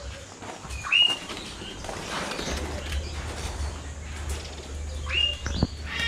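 Caged parrots calling: two short whistled calls that rise and then hold, one about a second in and another near the end, over a low background rumble.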